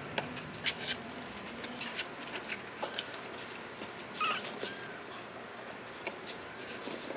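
Kittens scrambling in and out of a cardboard box, their claws making irregular scratchy clicks and scrapes on the cardboard. A short, high kitten mew comes about four seconds in.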